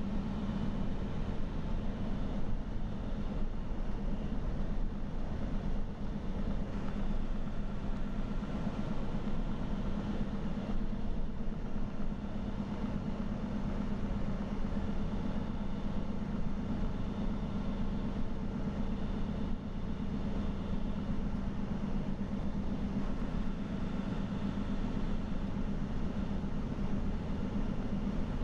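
Steady in-cab drive noise of a truck cruising at highway speed: a constant low engine drone mixed with tyre and road rumble.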